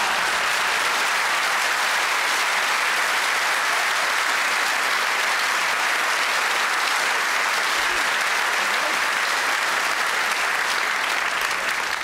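Audience applauding, a long, steady round of clapping.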